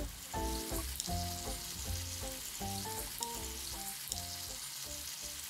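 Squares of white bread frying in melted butter in a frying pan, a steady sizzle, while the pieces are moved about with wooden chopsticks.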